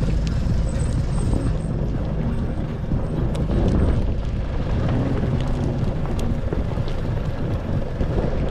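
Off-road pickup truck driving up a dirt mountain track: steady engine and tyre noise, with scattered sharp ticks.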